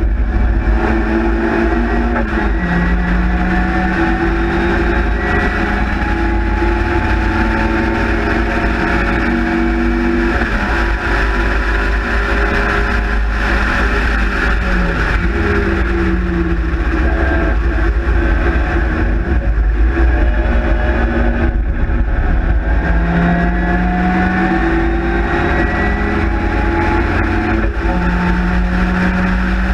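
Spridget race car's four-cylinder A-series engine running hard on track, heard from the cockpit: the revs climb, then drop back at gear changes several times. Heavy wind rumble on the open cockpit's microphone runs underneath.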